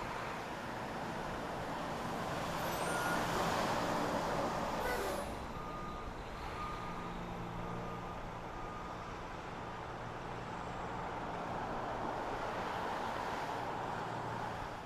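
Heavy vehicle engines running with a steady noise of traffic and machinery. The noise swells louder about three to five seconds in. A reversing alarm beeps several times about six to nine seconds in.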